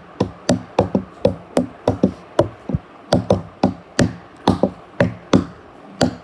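Repeated sharp banging knocks, about three a second and fairly evenly spaced, each with a short low ringing tail.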